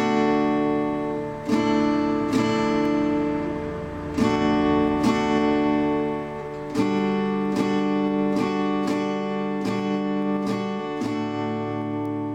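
Background music of acoustic guitar strumming chords at an easy pace, changing chord every few strums.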